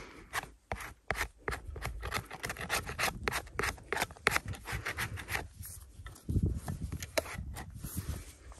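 Metal putty knife scraping and carving a lump of damp chalk: a quick, irregular run of gritty scraping strokes, a few each second.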